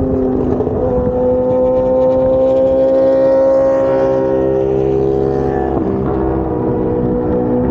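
Yamaha R1 inline-four motorcycle engine running at road speed, its note holding steady with slight rises and falls. The pitch steps down about a second in and again near six seconds, with wind rushing over the microphone.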